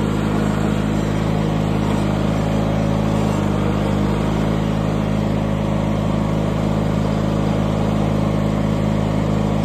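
1989 John Deere 316 garden tractor's Onan 16 HP 782 cc flat-twin engine running at a steady speed while the tractor is driven along. There is a slight shift in the engine note about three and a half seconds in.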